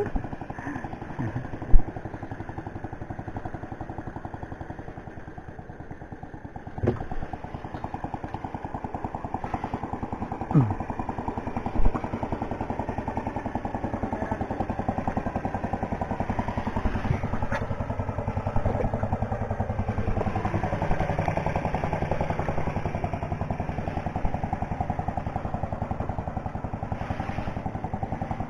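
Small boat engine running steadily, with a few sharp knocks and clatters in the first twelve seconds.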